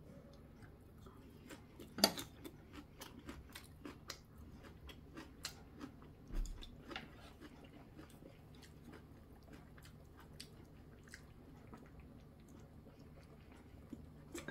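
A person chewing food close to the microphone, with small wet crunches and scattered clicks. There is a sharp click about two seconds in and a low thud near the middle.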